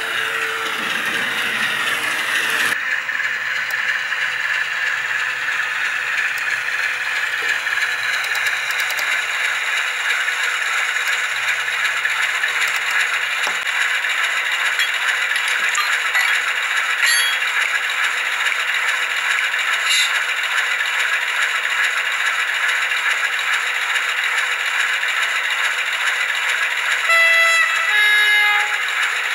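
ESU sound decoder in a Märklin H0 model V36 diesel locomotive playing a steady, rattly diesel engine idle through the model's small loudspeaker. Near the end two short horn tones sound, the second lower.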